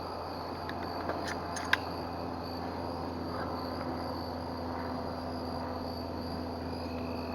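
Insects calling steadily in a continuous high-pitched drone. A few sharp clicks come between one and two seconds in, and the last of them is the loudest sound.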